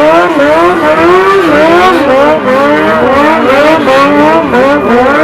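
A stunt motorcycle's engine revving up and down over and over in quick throttle blips, loud.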